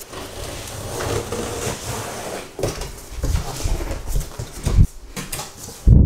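Cardboard packaging of a boxed fridge being opened and handled: scraping and rustling of cardboard, with a few dull thumps, the loudest near the end.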